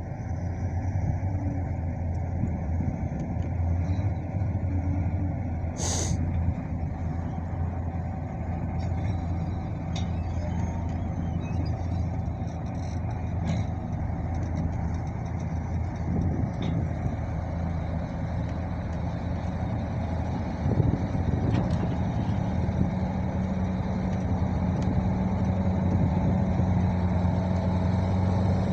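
A large engine running steadily with an even, pitched drone. A single sharp click sounds about six seconds in.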